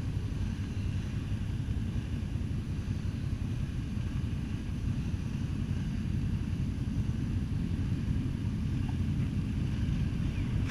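A motorcycle on the move: a steady, low engine rumble mixed with wind noise on the microphone, growing slightly louder near the end.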